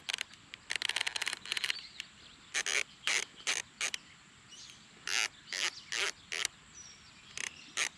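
A sprinkler head is being turned by hand to set its arc to a full 360-degree circle, and it gives ratcheting clicks. There is a quick rattling run in the first couple of seconds, then short clicks singly and in pairs every half second or so.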